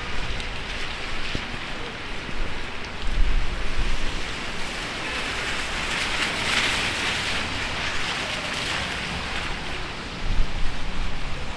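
Heavy rain hissing down on a city street, swelling for a few seconds in the middle. Low rumbles of wind gusting across the microphone come about three seconds in and again near the end.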